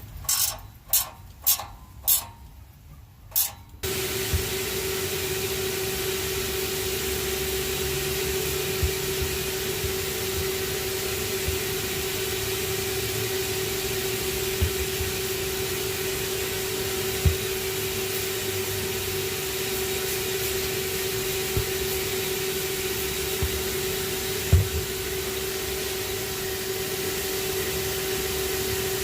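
A few sharp clicks, then a shop vacuum switched on about four seconds in, running steadily with a constant hum and airy hiss as it blows air into the exhaust through the tailpipe to pressurize it for a soapy-water leak test. A few faint knocks come through over it.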